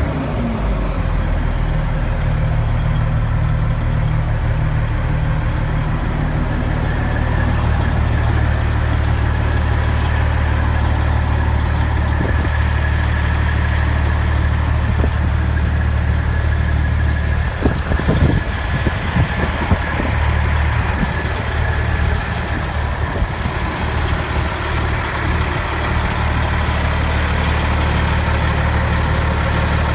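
Caterpillar diesel engine of a Ford LTL 9000 truck idling steadily through its twin vertical exhaust stacks, with a few brief knocks a little past halfway.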